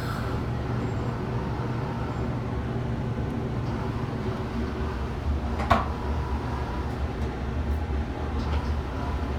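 Steady low mechanical hum inside a moving Ferris wheel gondola, with one sharp knock a little before six seconds in.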